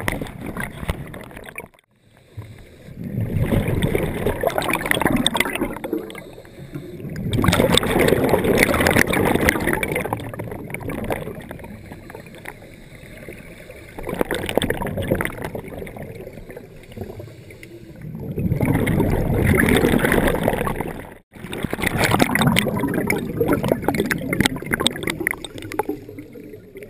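Scuba diver's breathing through a regulator underwater: exhaled bubbles gurgling out in rushes of two to three seconds, about five times, with quieter gaps between.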